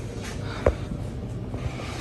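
Hunter Low Profile III ceiling fan's motor running with a steady low hum, and one sharp click about two-thirds of a second in.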